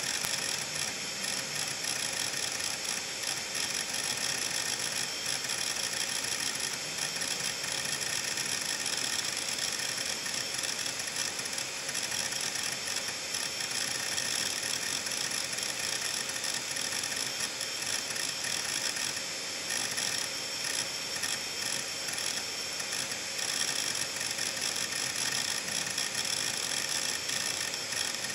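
Seagate Medalist 8630 (ST38630A) hard drive with its cover off, its head actuator arm seeking back and forth in a continuous fast rattle of clicks over the steady whine of the spinning platters. The drive is thrashing because several large files are being copied to many parts of it at once.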